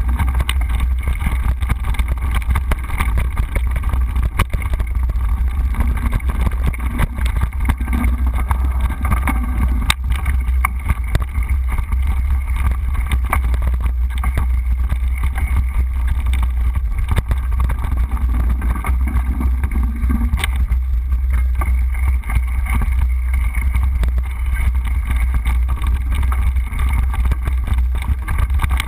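Wind rumbling on the riding camera's microphone as a mountain bike rolls over a dirt trail, with frequent small knocks and rattles from the bumps.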